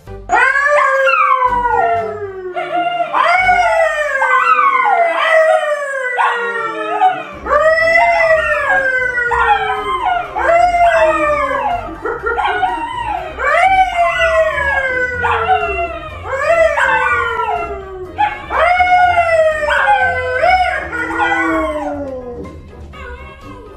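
A Labrador and a poodle howling together with a man howling along: overlapping long howls that each slide down in pitch, one after another every second or two, dying away near the end.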